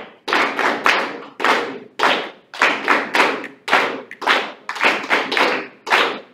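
A class of band students clapping a rhythm exercise together in a steady run of about three claps a second. The group is rushing, ending up a whole beat ahead of the teacher's tempo.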